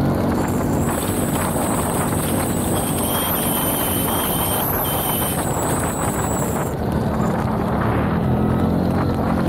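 CF Moto 850 quad's engine running under way, with wind on the microphone. A thin high whine sits over it for several seconds in the middle.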